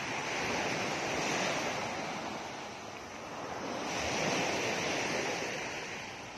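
Sea surf breaking and washing up a beach, swelling and easing twice about three seconds apart, with wind on the microphone.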